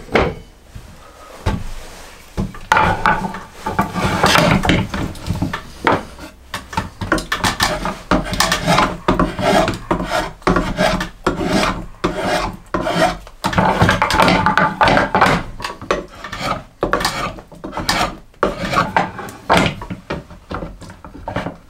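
A rasp filing the end of a wooden axe handle in repeated rough back-and-forth strokes, taking down the spots that a test fit of the axe head's eye marked as too large.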